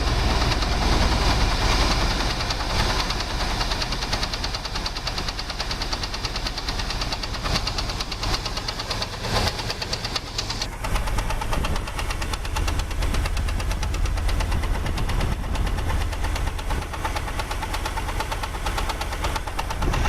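2001 Jeep Grand Cherokee's 4.0-litre straight-six idling with a rapid, steady knock. The knock is loudest at the exhaust manifold where it joins the engine; the owner suspects timing chain tensioners, a cracked or loose flex plate, a vacuum hose or rattling heat plates. Wind buffets the microphone.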